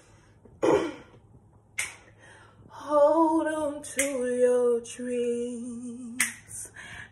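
A woman singing unaccompanied, starting about three seconds in, with long held notes and no clear words. Before that come two short sharp clicks about a second apart.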